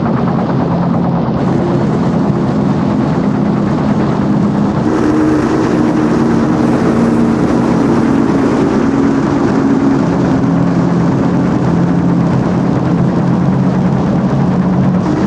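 Dense, harsh noise-electronic music with a stepping synthesizer bass sequence moving between a few low notes under a thick distorted wash.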